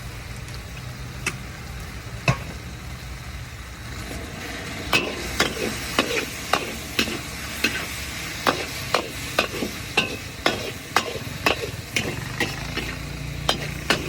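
Mee goreng being stir-fried in a wok: a steady sizzle with a low hum underneath, and a metal spatula striking and scraping the wok, a few scattered knocks at first, then about twice a second from about five seconds in.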